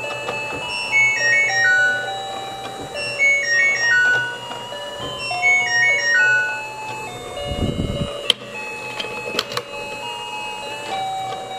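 Tinny electronic jingle: a short beeping tune that loops about every two seconds, then gives way to held tones. A brief low rumble comes about two thirds of the way through, followed by a few sharp clicks.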